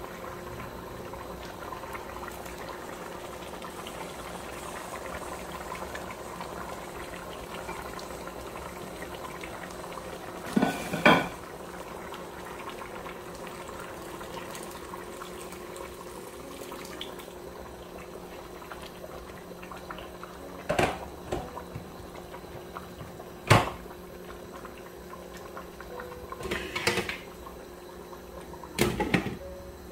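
A pot of pondu (cassava leaves) boiling steadily on the stove. Several sharp knocks of kitchenware against the pot come through it, the loudest about two-thirds of the way through.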